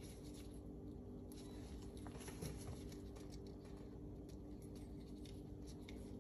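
Faint clicks, ticks and scrapes of small steel pistol parts being handled and fitted by hands in nitrile gloves, over a steady low hum.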